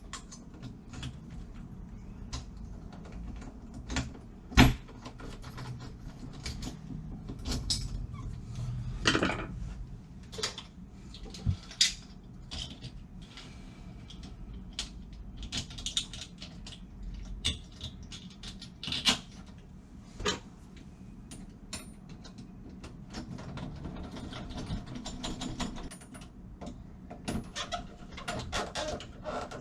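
Irregular metal clicks and knocks of a door lock and its cylinder being handled and worked on by hand, with one sharp knock about four and a half seconds in.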